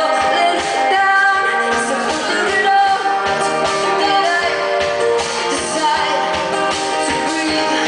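Live acoustic song: a woman singing, accompanied by a strummed ukulele and an acoustic guitar.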